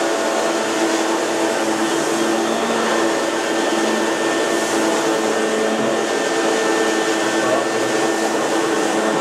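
Rainbow water-filtration vacuum running steadily, powering its carpet-shampooer head on the rinse setting over wet carpet: an even motor whine with airflow hiss.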